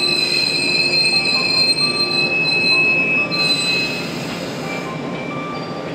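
Electric train's steel wheels squealing against the rails at low speed, two steady high-pitched tones over the rumble of the running gear. The squeal stops about three and a half seconds in, and the train noise then eases off.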